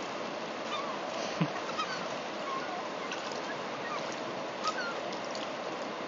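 Gulls giving short calls here and there over the steady rush of a flowing river, with a brief low thump about a second and a half in.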